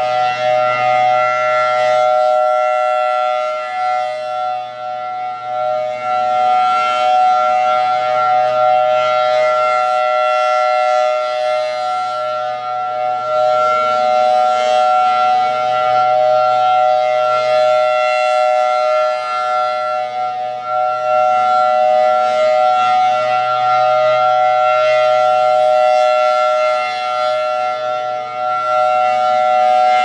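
Federal Signal Thunderbolt 1000T outdoor warning siren sounding a steady alert, holding two close tones that swell and fade in loudness as the horn rotates. Right at the end the pitch starts to drop as it begins winding down.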